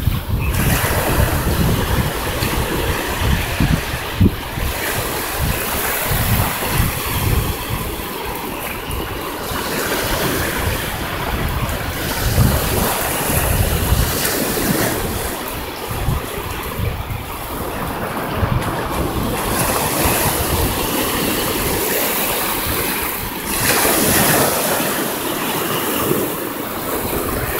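Small sea waves breaking and washing up the sand, with the hiss surging and fading again and again. Wind buffets the microphone with a low gusty rumble.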